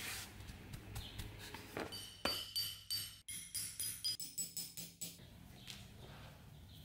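A hammer striking a steel leather stitching chisel (pricking iron) through leather laid on a board on an anvil, punching stitching holes: about ten sharp strikes with a short metallic ring, three to four a second, starting about two seconds in and stopping near the five-second mark. Quieter handling of the leather before and after.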